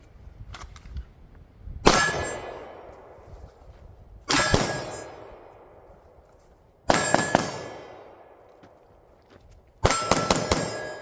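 Handgun shots fired in four quick strings, each string longer than the last, as in a 1-to-5 drill. Every string sets steel targets ringing with a clang that dies away over a couple of seconds.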